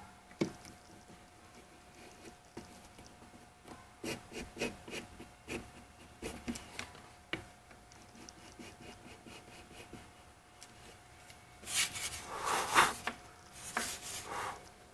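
Wooden hand plane and thin walnut lid handled on a workbench: scattered light wooden clicks and taps, then about a second of scraping and rubbing of wood on wood near the end. A faint steady hum runs underneath.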